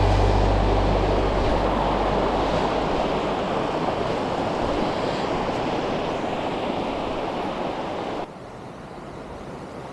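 Mountain stream water rushing steadily, slowly growing quieter; about eight seconds in it drops abruptly to a softer rush.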